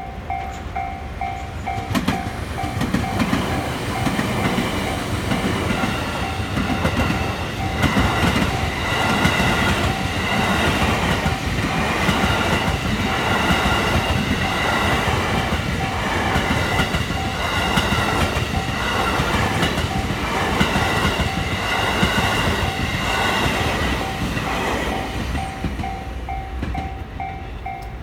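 Railway level-crossing warning bell ringing in a fast, steady pulse while a train passes, its wheels clacking in a regular rhythm over the rail joints. The train comes in about two seconds in and drowns the bell, then fades near the end, when the bell is heard plainly again. The ringing bell means the crossing is closed for the passing train.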